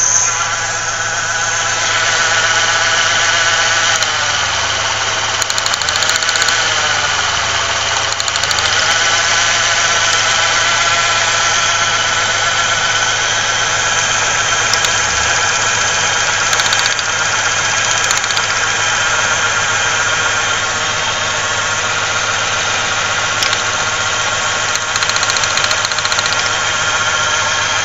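1995 Ford Ranger's 3.0-litre V6 idling, its speed sagging and recovering twice in the first ten seconds, then running steadily. The engine is suspected of misfiring.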